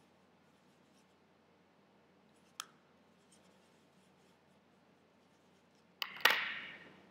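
Faint scratching of a paintbrush mixing paint in a plastic palette, with a light click about two and a half seconds in. Near the end comes a sharp knock that dies away in under a second.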